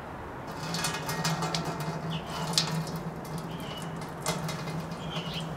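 Wort running out of a silicone hose and spattering into an empty stainless-steel brew kettle, starting about half a second in. These are the first runnings drained from the cooler mash tun.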